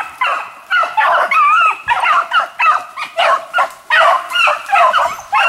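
Beagles baying in quick, overlapping yelping calls as they run a hare's track.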